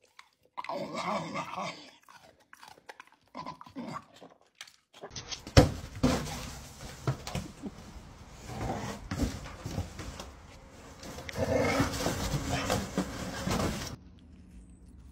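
A bull terrier vocalizing in a few short bursts, then several seconds of noisy rustling with many knocks as a dog noses into a cardboard box.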